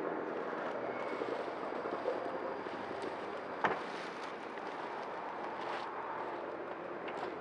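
Dry bundles of thatching straw rustling as they are handled and lifted, over a steady outdoor noise, with one sharp knock about three and a half seconds in.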